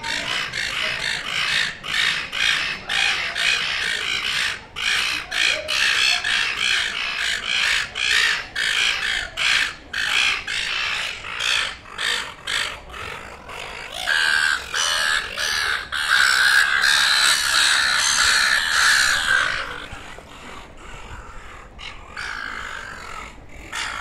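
Silver gulls squabbling, calling over and over in short calls in quick succession. About two-thirds of the way through the calling runs together louder and unbroken for several seconds, then drops back to quieter calls near the end.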